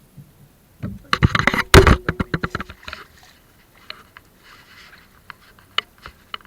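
A rapid clatter of knocks and scrapes starting about a second in, loudest near the start and thinning out over about two seconds, followed by a few scattered clicks.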